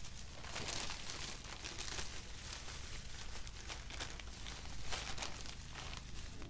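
Thin plastic bags and the cellophane wrapping of a pack of dry rice vermicelli crinkling and rustling irregularly as hands pull the pack out and handle it.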